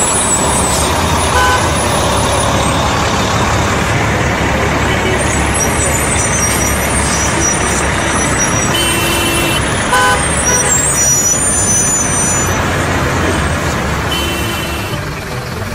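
Road traffic of trucks and cars running steadily, with short horn toots about a second and a half in and again about ten seconds in, and thin high squeals through the middle.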